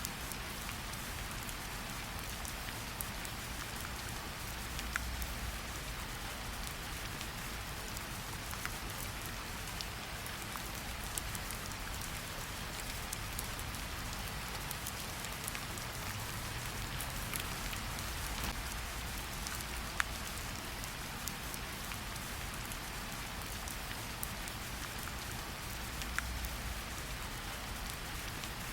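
Steady rain falling on a surface, a constant hiss with scattered sharp drip ticks.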